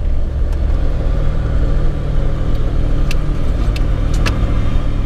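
Four-wheel-drive vehicle driving on a dirt outback track at night, heard from inside the cab: a steady engine and road rumble, with a few sharp ticks between about three and four and a half seconds in.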